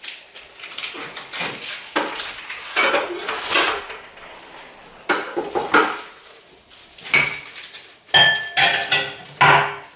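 Kitchenware clattering: a glass bowl knocking against the stainless-steel bowl of a stand mixer, in irregular knocks and clinks, with a short ringing clink about eight seconds in.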